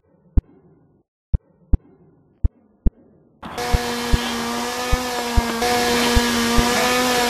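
Heartbeat sound effect, double thumps about every second and a half. About three and a half seconds in, a chainsaw-like motor suddenly starts running loudly and steadily, with the thumps still sounding under it.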